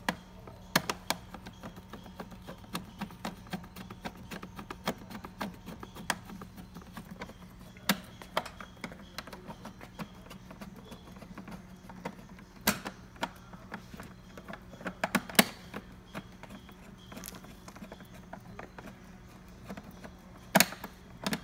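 Phillips screwdriver driving a screw into the plastic housing of a QBC STAR hematology analyzer: a run of irregular small clicks and ticks as the tip works in the screw head, with a few louder knocks along the way.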